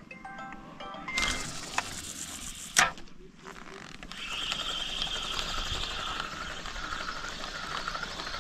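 Spinning fishing reel: a sharp click about three seconds in, then the reel being cranked with a steady, creaking mechanical whir.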